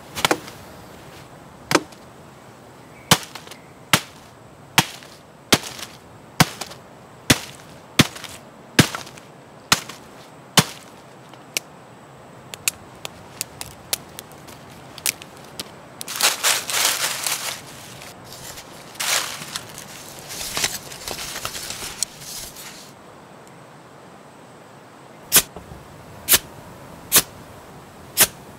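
Firewood being chopped and broken: sharp wooden knocks about one a second, then lighter cracks. Partway through there is a stretch of rustling and crackling of dry twigs being piled, and a few more sharp knocks near the end.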